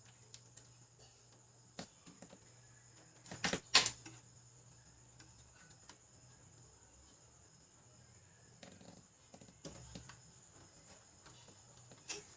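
Scattered clicks and light knocks of plastic wire connectors and printer parts being handled and plugged in on a Brother laser printer, with two louder sharp clicks about three and a half seconds in.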